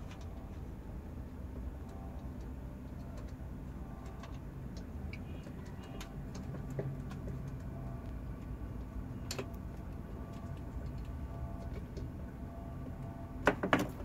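Small clicks and taps of a camcorder and metal bracket parts being handled and fitted onto a geared pan-and-tilt head, over a low steady hum. Two sharp, louder clicks close together near the end.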